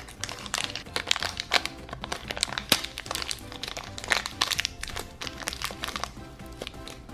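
Crinkling and crackling of a thin yellow LDPE plastic wrapper being picked at and pulled open by hand around a small Shopkins figure, thinning out near the end. Background music plays underneath.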